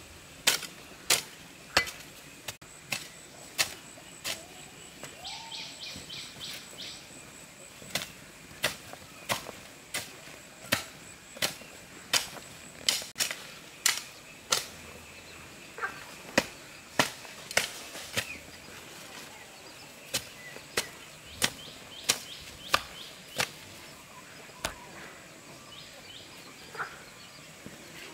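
Repeated sharp knocks of a hand tool striking, irregular at about one to two a second.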